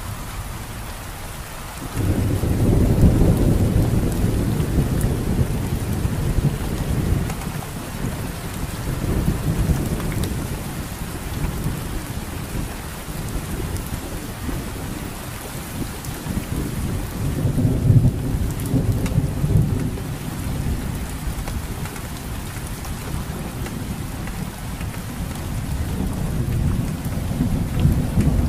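Steady rain falling, with thunder that breaks in suddenly about two seconds in and keeps rumbling deep and low, swelling again past the middle and near the end.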